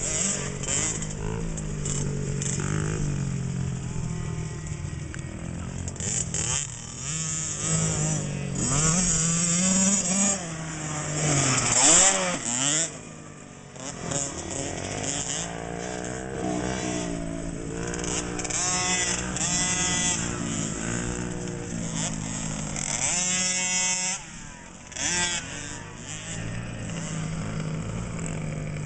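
Small 50cc two-stroke motocross bike engines revving, the pitch rising and falling again and again as the bikes accelerate and ease off around the track.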